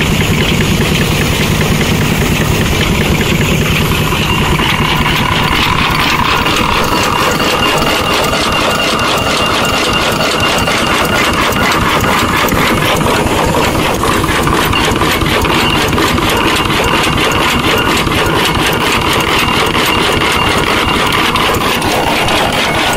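Antique stationary engine running steadily with fast, even exhaust beats. A higher steady tone joins about five seconds in and fades near the end.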